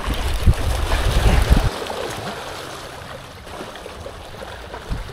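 Wind buffeting the microphone for about the first second and a half as a baitcasting rod is swung into a cast, then small waves lapping and washing over a rocky shoreline.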